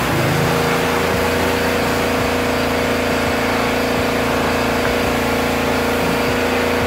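A steady mechanical drone with a constant hum that comes on suddenly and holds unchanged.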